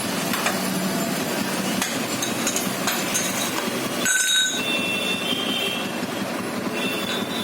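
Metal hand tools clinking and tapping over a steady background hiss, with a brighter metallic clink about four seconds in that rings briefly.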